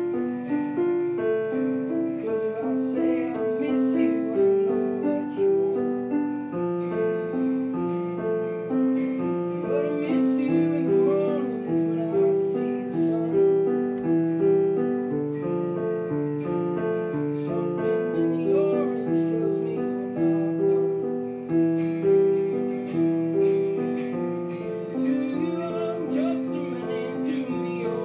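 Piano playing a steady run of held notes.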